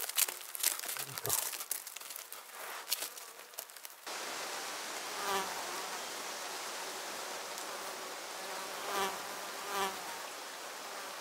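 Goats nibbling and pulling at vegetation, with crisp crunching and tearing clicks. After a cut, a steady drone of buzzing insects by a lake takes over, with a louder buzz swelling and fading three times as an insect passes close.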